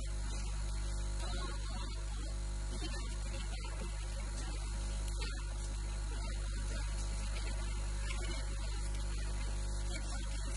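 Steady electrical mains hum with a stack of buzzing overtones and a hiss over it, unchanging throughout.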